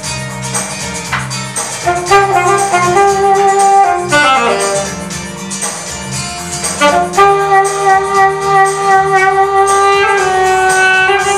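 Alto saxophone playing a melody live over a backing track with drums. It slides down in pitch about four seconds in, then holds a long note through most of the second half.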